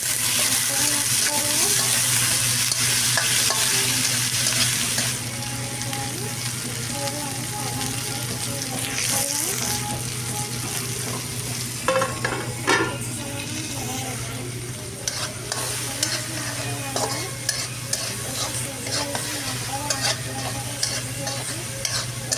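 Vegetables for a singara filling sizzling in hot oil in a kadai while a spatula stirs and scrapes the pan. The sizzle is loudest for the first five seconds, then settles lower, with scattered clicks of the spatula against the metal.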